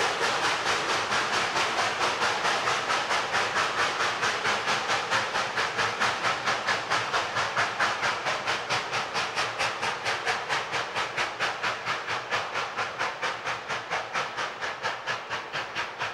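Steam locomotive exhaust chuffing in a steady rhythm of about four beats a second with hiss between the beats, slowly fading as the train pulls away.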